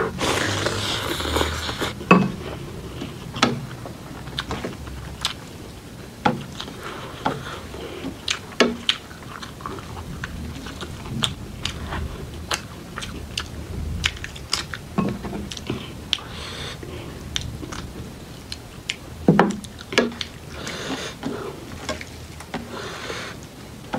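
A person chewing and biting a Nepali rice-and-dal meal with spicy soybean choila: wet mouth sounds broken by many short crunches and clicks, a few of them sharper and louder.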